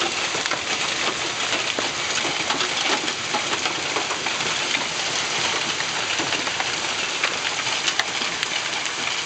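Hailstorm with heavy rain: a dense, steady patter of many small hailstones striking the ground.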